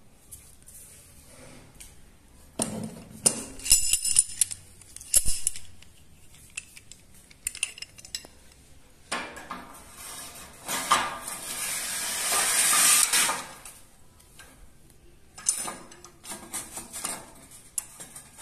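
Galvanized steel folding-door hinge and roller-hanger parts clinking and rattling as they are handled and fitted against a steel rail: clusters of sharp metal clinks, with a longer rushing scrape of about four seconds in the middle.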